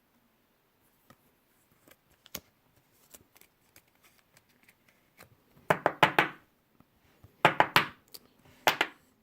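Plastic card sleeve being handled as a baseball card is slid into it: a few faint clicks, then three loud scraping rustles in the second half.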